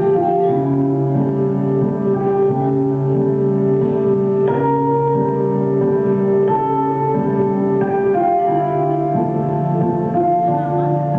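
Slow instrumental music with sustained piano and string-like notes changing every second or two.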